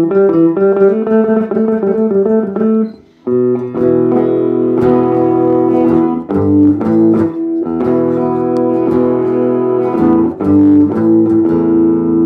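Guitar amplified through a portable PA speaker: a run of single picked notes, a brief pause about three seconds in, then strummed chords left ringing.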